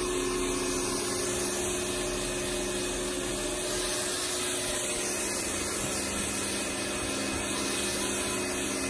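Pressure washer running steadily with a constant motor hum, its water jet hissing onto stone floor tiles as it rinses off foamy cleaning product.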